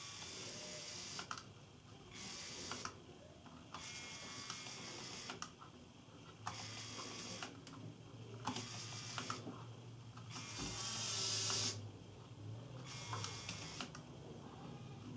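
Lego Power Functions electric motors whirring through their plastic gearing in about nine short runs of roughly a second each, started and stopped from the remote as the front wheels are steered back and forth.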